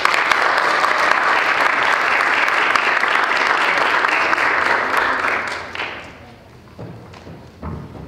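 Audience applauding, loud at first and dying away about six seconds in; a single low thump near the end.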